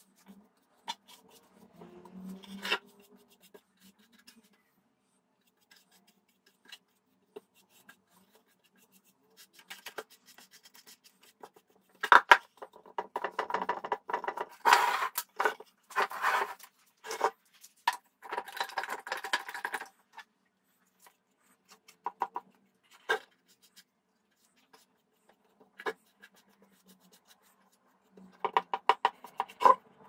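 Paintbrush scratching and rubbing over wood as a latex base coat is brushed on. The strokes come irregularly, mixed with scattered clicks, and are busiest in a run about halfway through.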